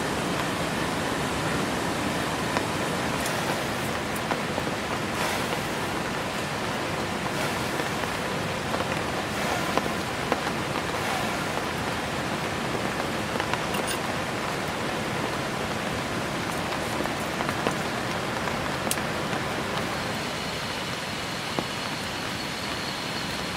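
Steady heavy rain hissing, with scattered sharp drips and taps of drops landing close by. Near the end a faint, steady high whine joins in.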